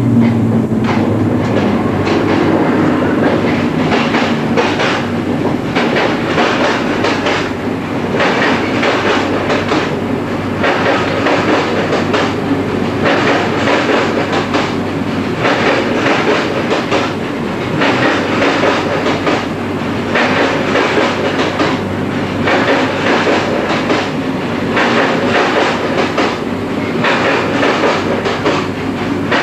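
RER MI79 electric train running, heard from inside the cab: a steady rumble and low motor hum with a wheel clatter over rail joints about every second or so.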